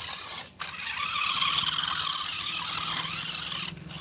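Toy RC monster truck's electric motor and gearbox whirring as it drives through a muddy puddle, with water splashing around the wheels. The whir drops out briefly about half a second in and again near the end, as the throttle eases off.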